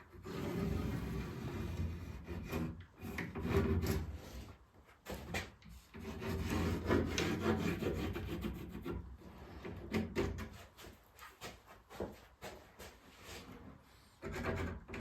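Wooden boards being handled: irregular scraping and rubbing of wood on wood, broken by sharp knocks.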